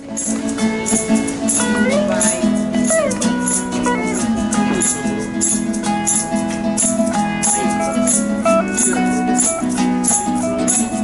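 Guitar music from a small trio: acoustic guitar strumming the chords, electric guitar playing the melody with bent notes, and a shaker keeping a steady beat.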